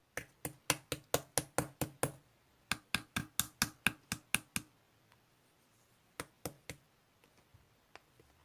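Slime being pressed and poked with the fingers, giving sharp clicking pops at about four a second. There are two runs of about nine clicks with a short break between them, then three more clicks after a longer pause.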